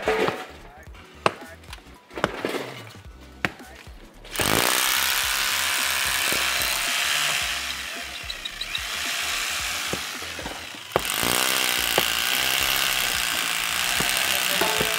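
Aegon AHD 201 rotary hammer drill boring into a plaster and concrete wall. It starts with a loud, steady rattling drone about four seconds in, eases off for a couple of seconds around the middle, then runs hard again from about eleven seconds.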